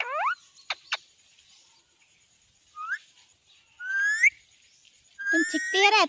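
Indian ringneck parakeet giving short, sharply rising whistled calls: one at the start, one about three seconds in, and a longer rising whistle about four seconds in. Near the end it breaks into a louder, longer string of calls.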